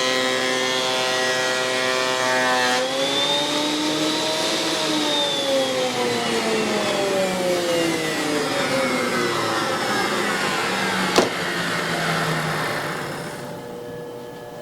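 A woodworking power tool's electric motor running steadily, briefly speeding up, then switched off and coasting down in a long falling whine over about eight seconds. A single sharp click sounds near the end of the spin-down.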